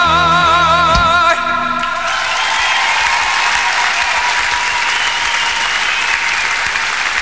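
A male singer holds the final note of the song with a wide vibrato over the orchestra, which closes with a single loud hit about a second in; the note cuts off just after. The audience then applauds steadily.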